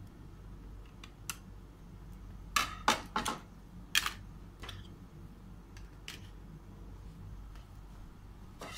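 A screwdriver clicking and tapping on the bottom-panel screws of a laptop as each is checked for tightness: scattered sharp clicks, with a quick cluster of louder ones about two and a half to three and a half seconds in.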